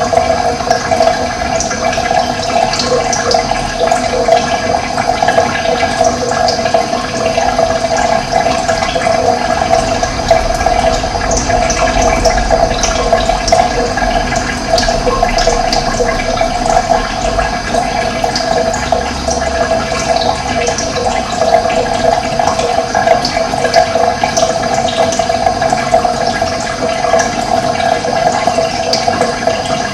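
Running water flowing steadily, with short high bird chirps scattered through it.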